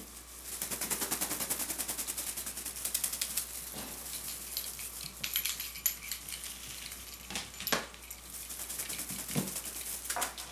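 Rapid light clicking and rattling from kittens playing with small toys on a play mat, in two long runs with a few sharper knocks between.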